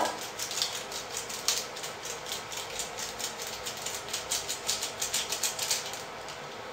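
Food sizzling in hot oil in a pan, with a dense, irregular crackle of pops that eases off near the end.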